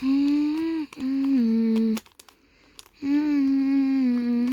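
A person humming long held notes: two notes, the second stepping down in pitch, then after a short pause one long note that slides down at the end.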